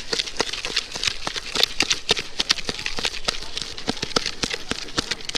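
Metal spoon rapidly clattering and scraping in a plastic bowl while tossing puffed rice for jhal muri, with quick irregular clicks over the rustle of the rice.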